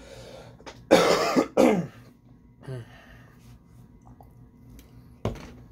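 A man clears his throat: two loud, short rasping throat-clears about a second in, each falling in pitch, then a smaller one a second later. A short sharp click comes near the end.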